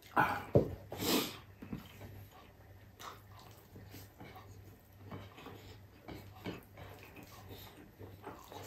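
Close-up mouth sounds of a man eating garlic fried rice and beef with his hand: wet chewing and lip smacks, irregular, loudest in the first second or so.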